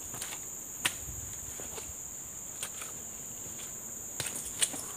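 Insects buzzing steadily with a high, unbroken drone, over footsteps on a muddy forest trail. A few sharp clicks come through, the loudest about a second in and two more near the end.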